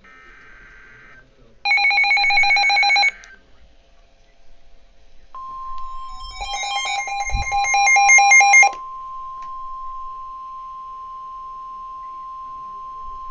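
Emergency alert broadcast tones. A short burst of warbling data tones, like the end of a SAME header, is followed about two seconds in by a loud trilling electronic alert lasting about a second and a half. Then a steady single-pitch alarm tone near 1050 Hz starts and holds, with a second loud trilling burst and a low thump over it partway through, announcing a new severe thunderstorm warning.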